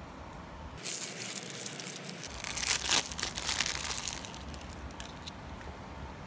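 A small plastic wrapper crinkling and tearing as fingers pull it open. It starts about a second in, is loudest near the middle and stops after about four seconds.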